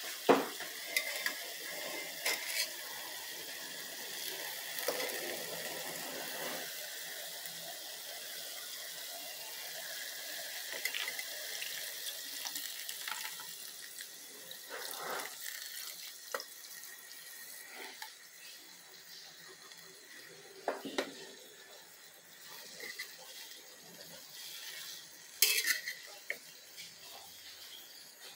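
Chicken and string beans sizzling in a nonstick pan, with a metal spatula clicking and scraping against it. The sizzle dies down after coconut milk is poured in about halfway through, and there is a louder clatter of the spatula near the end.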